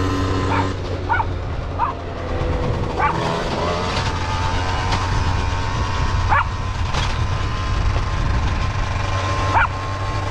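Miniature dachshunds giving short high yips every second or few seconds over a steady low mechanical hum.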